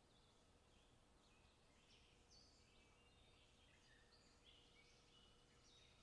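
Faint chirps and calls of small songbirds, several short notes a second, some overlapping.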